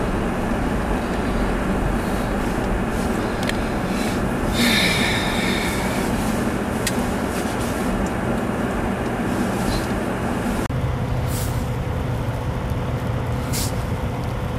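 Steady running noise of a vehicle on a snow-covered highway, with a brief higher hiss about five seconds in. About ten seconds in the sound changes abruptly to a steadier low hum.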